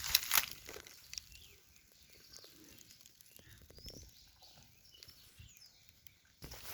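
Quiet outdoor dairy-farm ambience: a loud rustling burst right at the start, then faint high bird chirps and a few small knocks.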